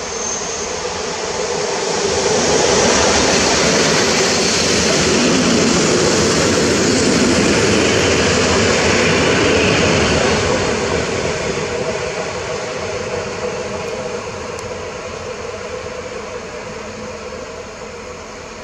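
Electric multiple-unit passenger train passing close by: wheel and running noise with a steady hum swells over a couple of seconds, stays loud for about seven seconds, then fades slowly as the train moves away.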